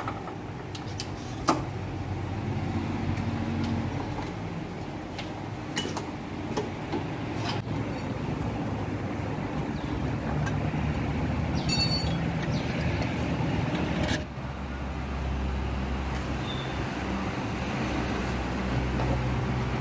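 A motor vehicle engine running steadily in the background, its hum changing abruptly about 14 seconds in, with scattered clicks and a ringing metal clink from hand tools working in an engine bay.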